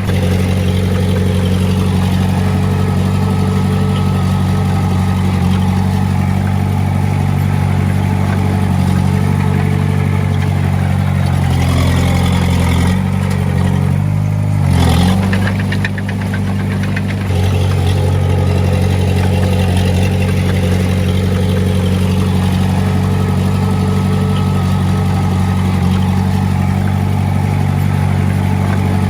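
Heavy machine's diesel engine running steadily. Its pitch shifts and bends for a few seconds about twelve to seventeen seconds in, then settles back to a steady tone.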